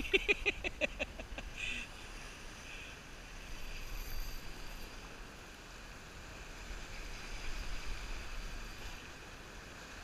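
Ocean surf washing over the shoreline rocks, a steady rushing wash with low wind rumble on the microphone. In the first second a rapid run of about ten sharp ticks sounds over it.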